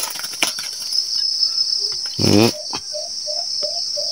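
Steady high chirring of crickets, with a run of short low cooing notes, about three a second, from the caged dove in the second half. A brief louder low sound comes just after two seconds, and there are a few sharp clicks.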